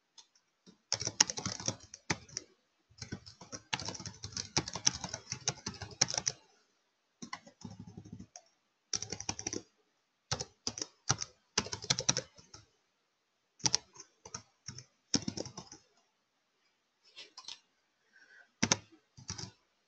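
Typing on a computer keyboard: rapid keystroke clicks in several bursts, separated by short pauses.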